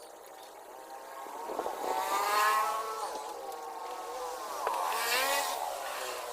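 A motor vehicle engine, most likely a motorcycle, running and passing by, its pitch rising and falling twice. It is loudest about two and a half seconds in and again about five seconds in.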